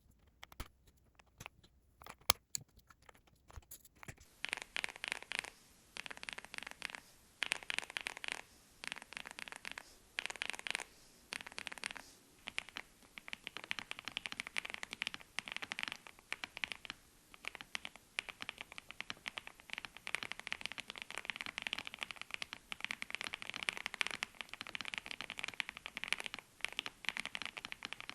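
Typing on a mechanical keyboard fitted with Gateron x Skyloong Purple linear switches. A few separate keystrokes come first, then rapid typing in short runs from about four seconds in, turning almost continuous from about thirteen seconds.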